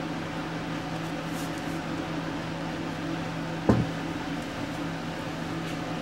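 A steady low hum, with a single sharp knock a little before four seconds in as the plastic smoke detector is handled over the glass jar on the bench.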